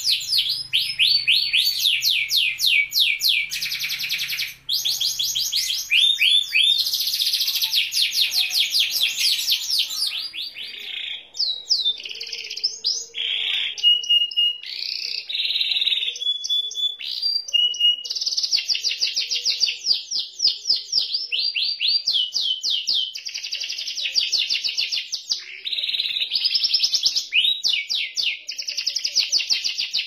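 White domestic canary singing a long, continuous song of rapid rolling trills, with a few steady whistled notes held near the middle.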